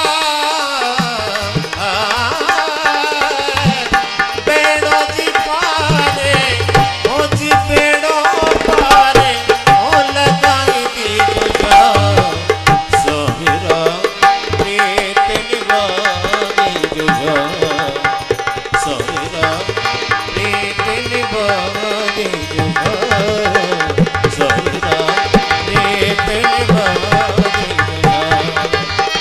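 Harmonium and dholak playing a bhajan together: the harmonium carries a held, reedy melody over a steady, fast hand-drummed dholak rhythm.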